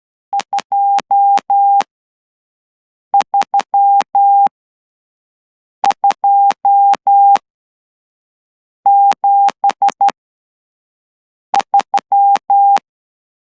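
Morse code sidetone near 800 Hz keyed by hand on a straight key through a CW interface: five separate groups of dots and dashes about three seconds apart, each group about five elements long, with a small click at the start and end of each element.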